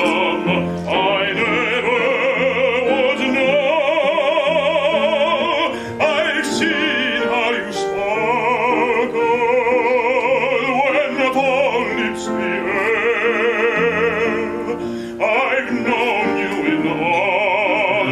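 Male baritone singing a Broadway ballad in full operatic voice with wide vibrato, accompanied by grand piano. The long sung phrases are broken by short breaths.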